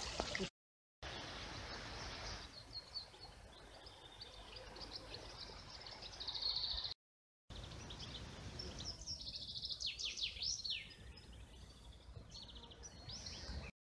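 Small songbirds chirping and singing over a steady low outdoor background noise, with quick high whistled notes, broken twice by a moment of dead silence.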